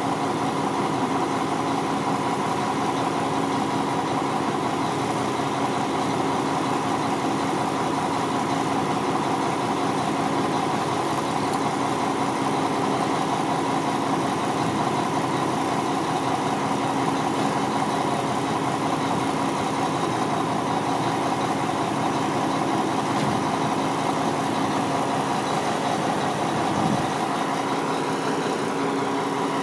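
Mack CV713 winch truck's diesel engine idling steadily, with a constant tone over the engine's running.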